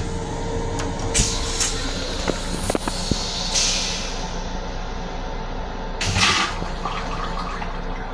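Vacuum toilet of a Long Island Rail Road M7 railcar flushing: a hiss of rinse water about three and a half seconds in, then a short, loud suction whoosh about six seconds in that empties the bowl, over a steady low hum. A few knocks about a second in.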